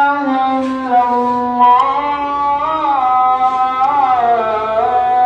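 Background music: a slow melody of long held notes that slide from one pitch to the next.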